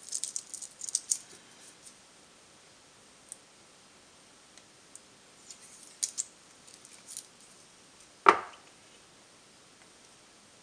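Small, sharp clicks and ticks from fingers working the metal tabs of rechargeable battery cells, thick in the first couple of seconds and sparse after, with one louder knock about eight seconds in.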